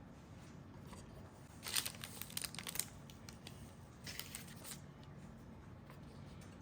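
Two short bouts of crinkling and rustling, as of something being handled: a longer, louder bout about two seconds in and a briefer one about four seconds in.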